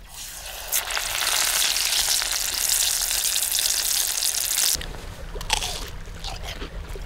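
Battered tempura dropped into hot oil in an enamelled cast-iron pot, the oil sizzling loudly and steadily for about four and a half seconds before cutting off abruptly. Then a crisp tempura shrimp being bitten and chewed, with a few short crunches.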